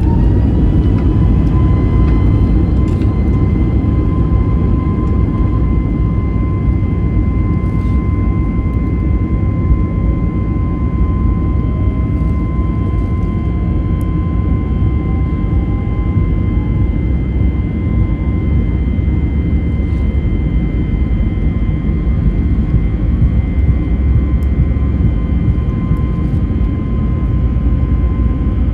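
Airbus A321neo jet engines heard from inside the cabin, spooled up to high thrust: a steady high whine that finishes rising about half a second in and then holds level, over a loud constant rumble, typical of the take-off roll.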